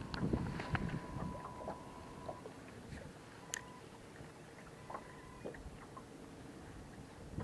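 Small clicks and knocks of a spinning rod and reel being handled and cast, over low water and wind noise around the boat. A faint thin whine comes and goes in the background.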